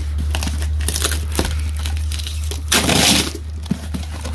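Rummaging through bags and boxes of stored belongings: scattered small knocks and rustles, with a loud crinkling rustle about three seconds in. A steady low hum runs underneath.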